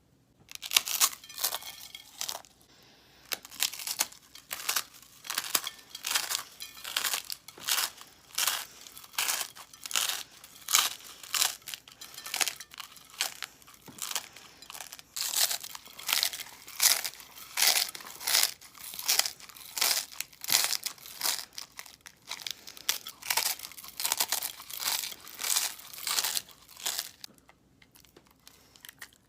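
Close-miked crunchy chewing of a frozen fruit roll-up, a rapid even run of crisp crackling crunches, about one and a half a second, that stops near the end.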